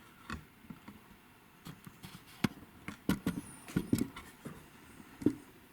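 Irregular light clicks and knocks of hands handling objects at close range, about eight in all, the sharpest a little after five seconds. A faint high whine comes in briefly around the middle.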